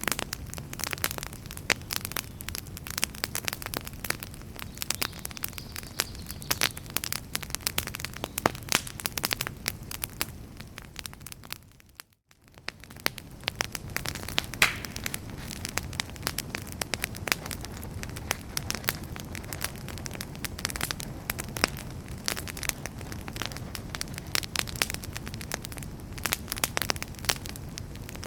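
Wood fire in a fireplace crackling and popping with many irregular sharp snaps over a low steady rumble of flame. About twelve seconds in the sound fades briefly to near silence and swells back.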